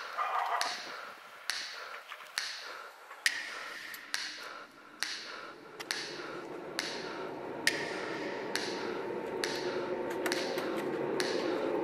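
A slow, even tapping beat, a sharp tick a little under once a second, each with a short ringing tail; from about six seconds in a low steady drone swells in beneath it.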